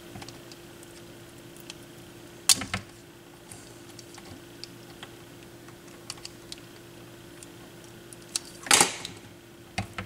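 Side cutters snipping and nicking the insulation off the ends of an RCA cable's wires by hand: scattered small ticks and a few sharp clicks, the loudest about two and a half seconds in and near the end. A steady low hum runs underneath.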